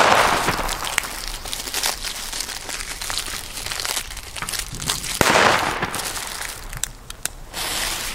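China-Böller D firecrackers exploding on asphalt: a sharp bang right at the start, then another sharp bang about five seconds in.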